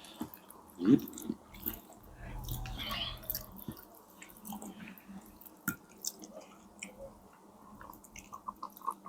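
Close-up chewing of food, with wet mouth clicks and smacks scattered throughout and a quick run of short clicks near the end.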